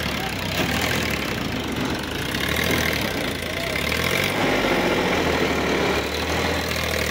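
Sonalika tractor's diesel engine running steadily at low revs.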